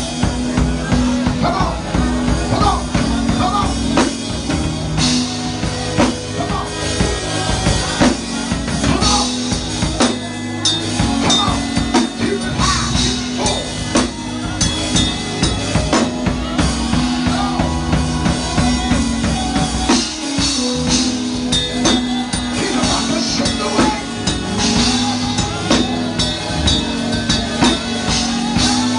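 Live church band playing worship music: a drum kit keeping a steady beat under sustained keyboard and bass notes.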